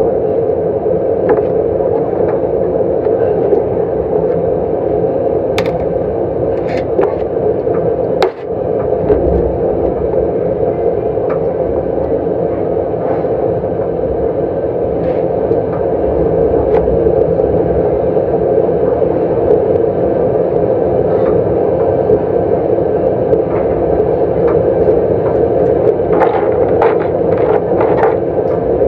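A steady, loud hum of background noise with no voices, broken by a few light clicks of utensils and shells against the dishes, a cluster of them near the end.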